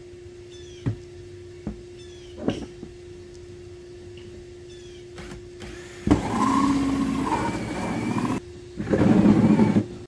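Cordless drill with a 4-inch hole saw cutting into the wall of a plastic sump basin: a few knocks as it is positioned, then the drill runs hard for about two seconds from six seconds in, stops, and runs again for about a second near the end.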